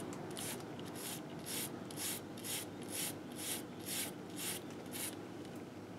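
Copper-bristle brush scrubbing grime off the crankcase of a 1958 Harley-Davidson Sportster engine around the cylinder base. It goes in quick back-and-forth strokes, about two a second, and stops about five seconds in.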